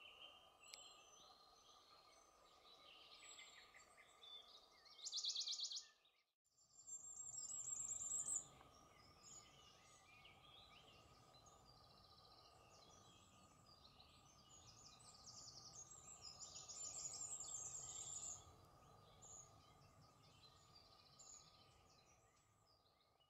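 Faint outdoor ambience of small birds chirping and singing, with bursts of fast, high trills about five seconds in, again just after a brief dropout near six seconds, and again around sixteen to eighteen seconds. A faint steady tone runs underneath.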